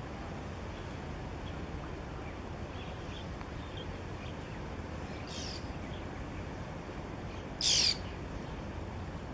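Birds calling over a steady low background rumble: a few faint chirps, then short, sharply falling calls, the loudest near the end.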